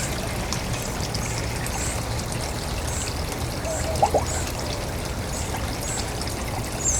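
Small birds giving short, high chirps about once a second over a steady trickling, water-like rush; a brief, louder lower two-note sound about four seconds in.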